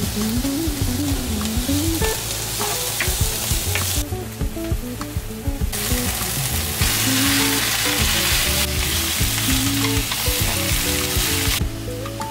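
Chopped spring onions sizzling as they fry in a nonstick pan, with a spatula stirring and knocking against it. The sizzle drops out for about two seconds around four seconds in, comes back louder, and stops shortly before the end. Background music plays under it.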